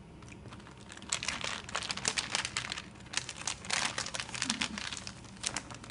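Plastic packaging bag crinkling and crackling as it is pulled open and handled, starting about a second in.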